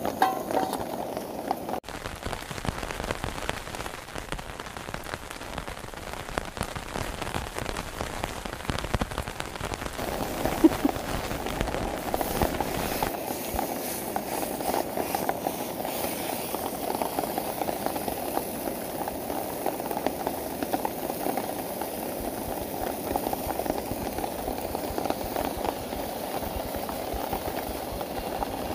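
Steady rain pattering down as a dense crackle of drops, with one sharper click about ten seconds in.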